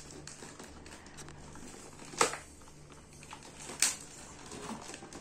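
A clear plastic bag of toy parts crinkling as it is handled, with two sharp crackles about two and four seconds in.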